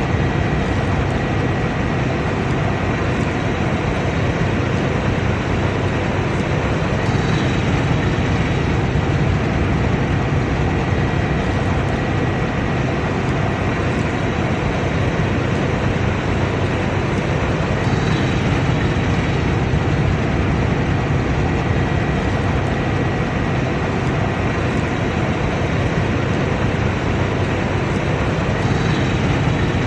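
A combine harvester running steadily, a dense unchanging mechanical drone with a faint high steady whine through it.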